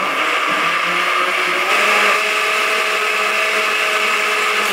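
Countertop blender running at full speed, loud and steady, blending fruit, greens and water into a thick smoothie.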